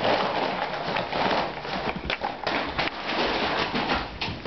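Brown paper bag crackling and rustling as a valley bulldog puppy attacks it, with the puppy's paws scrabbling and thudding on the floor: a dense stream of crackles and small knocks.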